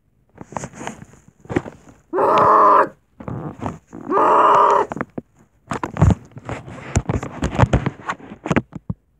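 A child's voice giving two drawn-out 'ahh' cries, about two and four seconds in, then a run of thumps and rustles as plush toys are knocked about close to the microphone.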